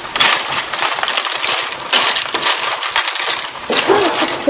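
Snail shells clattering against each other and the frying pan as they are stirred, a dense, continuous run of clicks and rattles.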